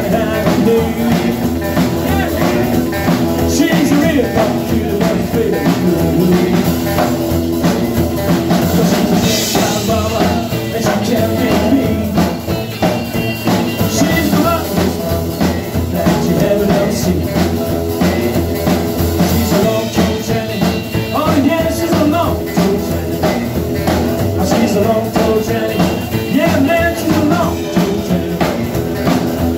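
Live rock and roll band playing a song: a man singing lead over a strummed acoustic guitar, electric guitar, upright double bass and drum kit.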